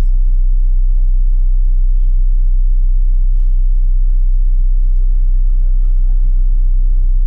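Bus engine and drivetrain heard from inside the passenger cabin as the bus drives: a steady, deep rumble with a few faint clicks and rattles.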